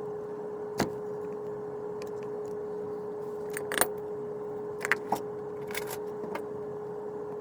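A steady hum with scattered sharp clicks and short scrapes of hand tools at work on a rifle stock, one about a second in and a cluster in the middle.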